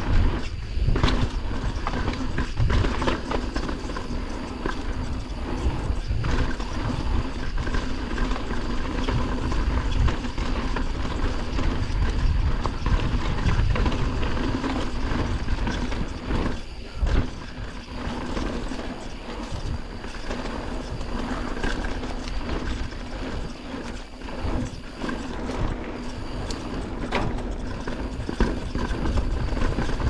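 Mountain bike riding fast down a dirt trail: tyres rolling over dirt, with the bike rattling and knocking over bumps and a ratchet-like ticking from the freehub.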